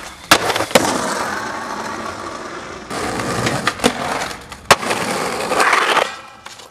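Skateboard wheels rolling on concrete, with several sharp clacks from the board popping and landing. The rolling noise changes abruptly about three seconds in.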